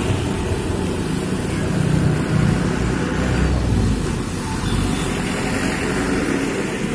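Street traffic passing close by on a wet road: motor scooters and a minibus drive past with engines running, the engine rumble swelling as the minibus comes near about halfway through, over a steady hiss of tyres on wet asphalt.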